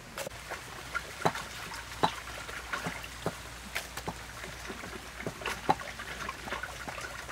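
Hands swishing and splashing water in steel basins, with scattered light knocks and clinks.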